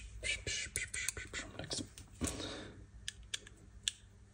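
Small metal tools clicking and tapping while the bleed port screw of a hydraulic disc brake is worked loose: a quick run of clicks, a short scrape a little after two seconds, then a few sparse clicks.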